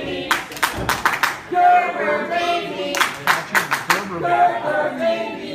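Wrestling crowd chanting in unison, the chants alternating with bursts of rhythmic clapping about every two and a half to three seconds.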